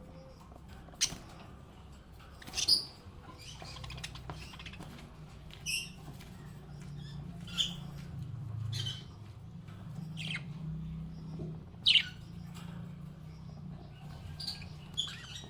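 Pet budgerigar chirping: short, sharp high chirps spaced irregularly about every one to two seconds, some dropping in pitch, with the sharpest ones about a second in and near twelve seconds. A steady low hum runs underneath.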